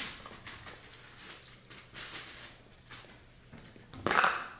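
Close-up eating sounds from a bowl of ramen: wet mouth noises and small clicks, with a short louder noisy burst near the end.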